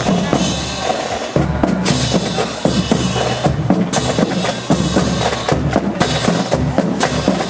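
Drum-heavy music with a steady bass-drum and snare beat.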